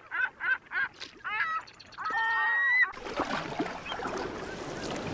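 A gull calling: a rapid series of short calls, about three a second, ending in one longer held call that cuts off about three seconds in. Then an even wash of water and wind noise from an action camera held at the sea's surface.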